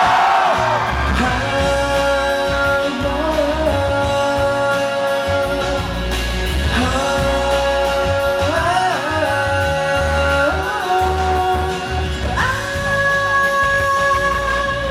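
Live band playing a song's intro: long held sung notes that slide to a new pitch every few seconds over a pulsing bass line. The crowd's screaming fades out in the first second.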